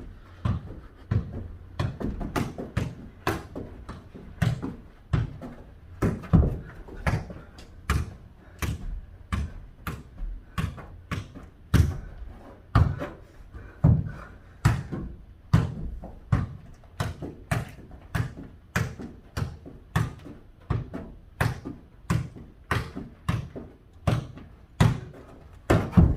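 A soccer ball being kicked back and forth and bouncing on a hard floor in a foot-volleyball rally: a steady run of sharp thuds, about two a second, with room echo.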